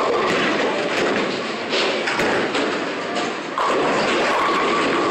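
Bowling alley din: balls rolling and pins clattering on the lanes, with a few dull thuds.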